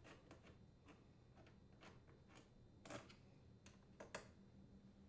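Faint, irregular metallic clicks and ticks of a wrench and bolts being worked as the dishwasher hinge's two mounting bolts are unthreaded. The loudest clicks come about three seconds in and again just after four seconds.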